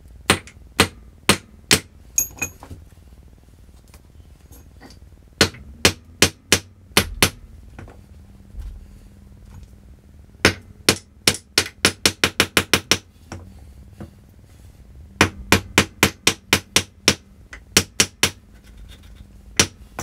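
Hammer blows driving steel ball bearings into the Allen-key sockets of a ground anchor's bolt heads, to block the bolts from being undone. Sharp metal strikes come in four bursts of quick blows, the fastest several a second.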